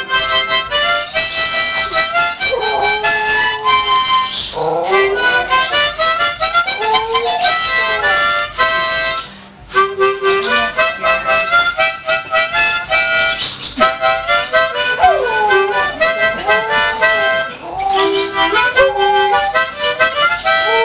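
Harmonica played in chords with a short break about halfway through, while a dog howls along, its howls sliding up and down in pitch over the reeds.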